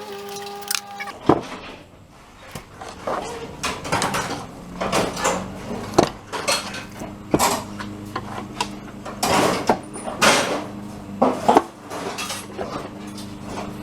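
Irregular metallic clinks, clunks and knocks of hand tools and engine parts being handled on a workbench as a small go-kart engine is opened up at the side cover, over a faint low steady hum.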